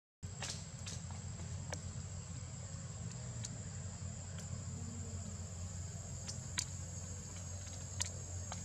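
Forest insects, crickets or cicadas, holding one steady high-pitched note, over a low steady hum. A few sharp clicks break in, the loudest two about six and a half and eight seconds in.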